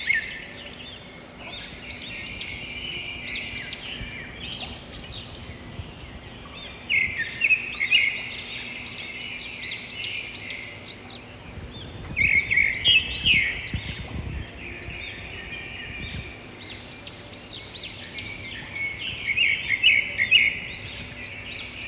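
Songbird singing outdoors: repeated phrases of quick, high chirping notes, loudest in bursts every five to seven seconds, over a faint low rumble of wind.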